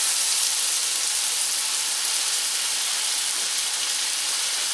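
Diced tomatoes, onion, garlic and serrano chiles sizzling steadily in hot oil in a stainless steel pan while they brown.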